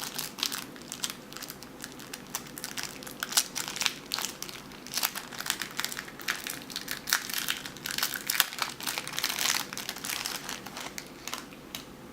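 Plastic wrapping crinkling and crackling as it is handled, an irregular run of small crackles and clicks, most likely the packaging of the replacement iPhone back cover being opened.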